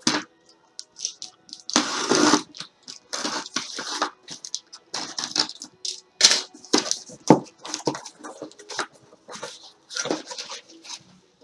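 Paper and cardboard packaging rustling and crackling in irregular bursts as a mailed sample box is opened and its contents unpacked by hand.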